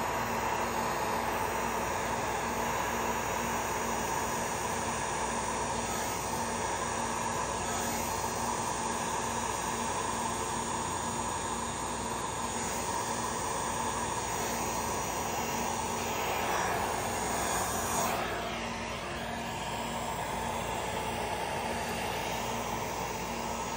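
Handheld heat gun running steadily, its fan blowing hot air across wet epoxy resin. The sound swells slightly and then dips about 18 seconds in.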